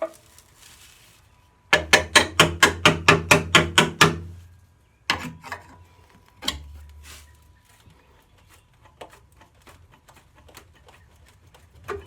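A quick run of knocks, about six a second, lasting about two seconds, followed by a few single knocks and faint clicks.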